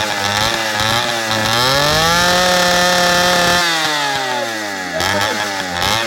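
Small engine of a motorized bicycle revved hard through its open exhaust pipe, loud: the pitch climbs, holds at high revs for about two seconds, then drops off sharply and falls away, with short blips of throttle near the end.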